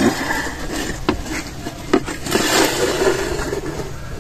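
Steel plate lid loaded with coals being lifted off an aluminium cooking pot at the end of dum cooking: scraping of metal on the pot rim with two sharp metallic knocks, about one and two seconds in.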